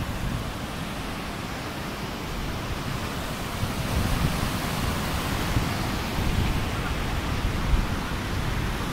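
Fast mountain river rushing over rocks in white-water rapids: a steady, dense roar of water, growing a little louder about four seconds in.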